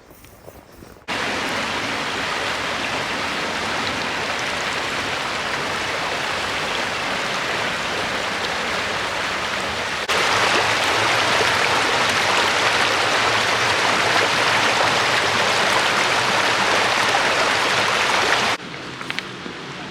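Creek water rushing over rocks, a steady dense hiss. It comes in abruptly about a second in, gets louder at about ten seconds, and drops away suddenly near the end.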